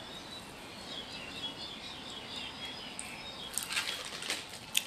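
Faint high chirping sounds, then from about three and a half seconds in, a run of sharp rattling and rustling as a tall plastic jar is picked up and handled.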